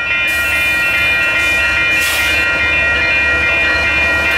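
Union Pacific freight train's lead diesel locomotives approaching, the engines rumbling low with a steady high whine over them.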